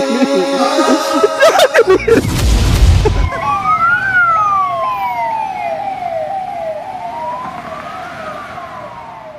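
Music for about the first two seconds, then a brief loud low rumble, then an ambulance siren: a slow rising and falling wail over a quicker repeating yelp, about two a second, fading away near the end.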